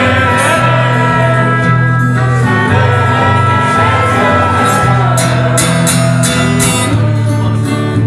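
Live band playing an instrumental passage: a strummed acoustic guitar and a trumpet holding long notes over a steady low bass line, with sharp strokes in the middle of the passage.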